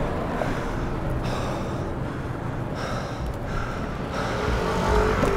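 Longboard wheels rolling on city pavement, an uneven rumbling noise that grows louder about four and a half seconds in.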